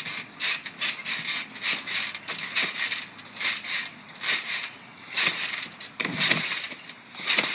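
Bubble wrap on a trampoline crackling and popping under jumping feet, in quick, irregular bursts.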